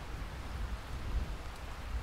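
Steady rain falling as a dense, even patter, with a low rumble underneath.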